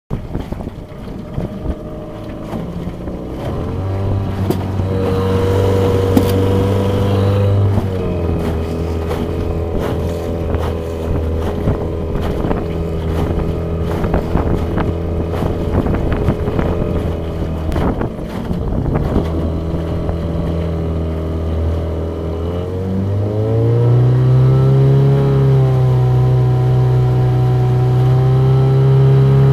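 A 1995 Johnson 4 hp two-stroke outboard motor running with the boat under way, a steady drone with a brief dip in pitch about a quarter of the way in. About three quarters through, its revs rise and it holds at a higher pitch. Wind noise on the microphone runs underneath.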